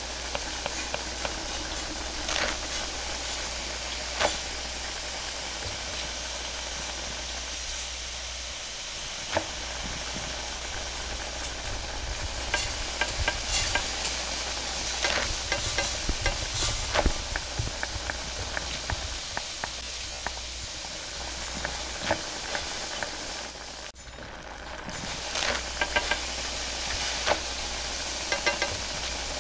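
Roti canai frying on a flat steel griddle: a steady sizzling hiss over a low hum, with scattered sharp clicks and knocks of the spatula on the griddle and the dough on the steel counter. About five seconds before the end the sound briefly drops away, then returns.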